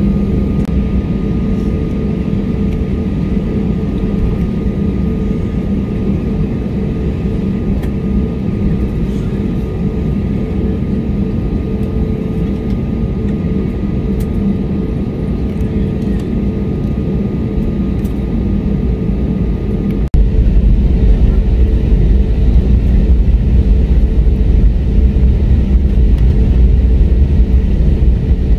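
Airbus A320 cabin noise while taxiing: a steady engine hum and rumble with a faint high whine. About two-thirds of the way through it switches abruptly to a louder, deeper rumble, and the whine is gone.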